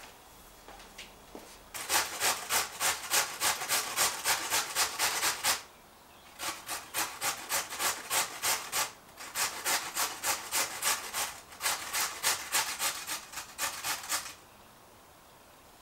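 Raw potato being grated on a metal box grater: quick rasping strokes, about three a second. The strokes come in four runs with short pauses between them and stop near the end.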